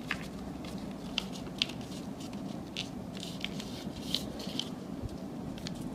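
Origami paper being folded and flattened by hand: soft rustling with scattered small crackles and ticks as the creases are pressed down.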